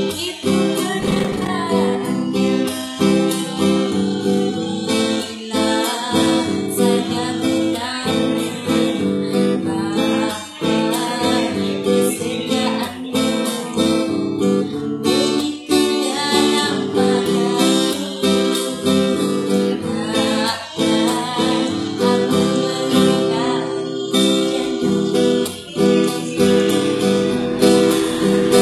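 A woman singing a song to a strummed acoustic guitar.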